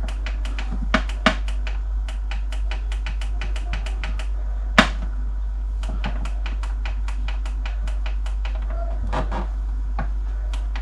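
Air fryer's control-panel buttons pressed over and over to step the cooking timer up, a quick run of short clicks several a second, with one louder click about five seconds in, over a steady low hum.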